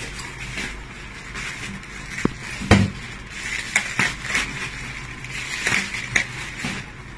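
Scissors snipping through a plastic mailer bag, with the plastic crinkling and rustling as it is pulled open, broken by scattered clicks and one sharp knock about two and a half seconds in.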